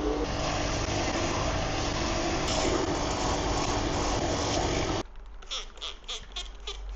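A motor-driven shoe-repair workshop machine running with a steady low hum under a loud, even hiss. It cuts off suddenly about five seconds in, and a few light irregular clicks and taps follow.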